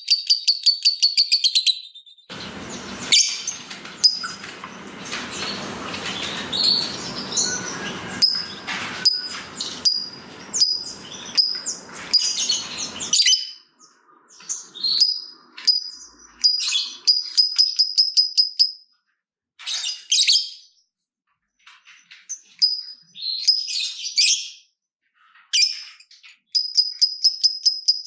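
Lovebird calls. A rapid run of sharp, high, evenly spaced chirps (the 'ngetik' ticking) gives way about two seconds in to a long harsh chatter lasting some ten seconds (the 'ngekek'). Scattered chirps and short squawks follow with pauses, and the rapid ticking run returns near the end.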